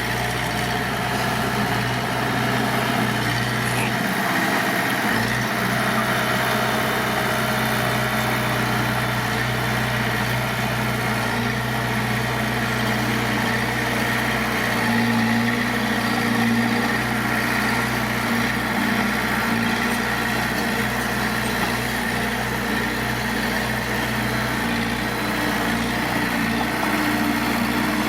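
Heavy earthmoving machine's diesel engine running steadily at a low, even speed.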